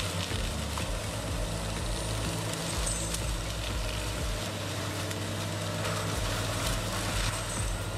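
Heavy machinery running with a steady engine drone and a few sharp cracks or knocks over it.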